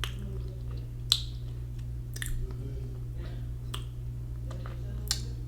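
Close-up eating sounds of ramen noodles: a few sharp mouth clicks and lip smacks while chewing, spaced a second or so apart, over a steady low hum.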